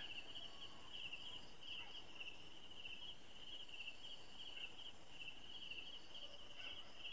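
Crickets chirping faintly in a steady, pulsing chorus.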